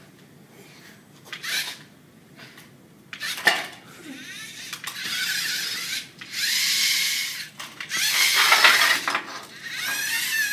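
Small remote-controlled kit robot driving: its electric motors whine while its metal parts rattle and clink. A couple of single knocks come first, then longer stretches of clattering from about four seconds in.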